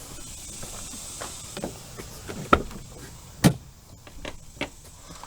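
Light clicks and taps of things being handled, with two sharp knocks about a second apart near the middle.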